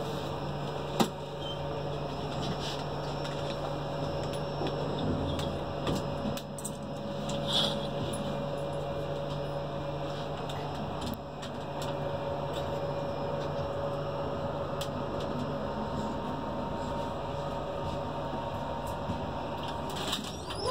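Steady hum and rushing noise inside an air-conditioned railway coach, with a few isolated clicks.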